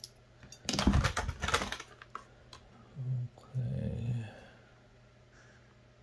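Ozark Trail 12-in-1 multi-tool's folding metal tools clicking and rattling as they are worked open, a quick cluster of clicks about a second in. A man's voice hums briefly around three to four seconds in.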